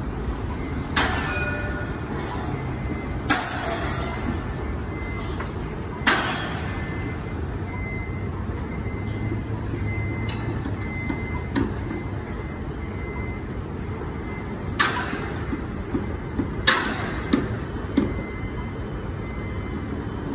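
Road traffic at an intersection: a steady low rumble of passing vehicles, broken by five short hissing sounds.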